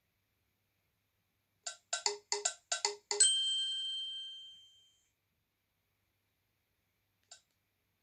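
Alcatel VM800 mobile phone playing a built-in ringtone preview: a quick run of about seven chiming notes, then a last note that rings on and fades out over about two seconds. A brief blip sounds near the end.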